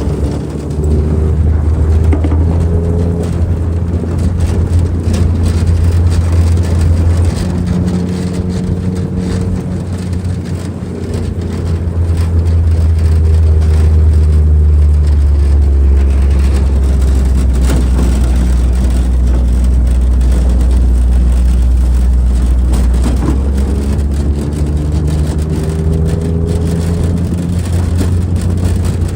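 Off-road vehicle engine running at low speed, with a steady low drone whose pitch shifts up and down a few times as the revs change.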